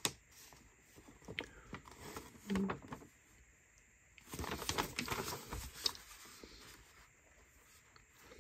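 Glossy paper insert rustling and crinkling as it is handled and unfolded, with a few sharp clicks and the longest rustle about four to six seconds in. A brief low hum of a voice about two and a half seconds in.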